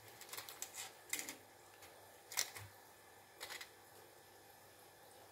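Light, sharp clicks and taps from handling a wireless microphone's battery tube with a small screwdriver: a quick cluster of small clicks in the first second, then single clicks about once a second, the one about two and a half seconds in the loudest.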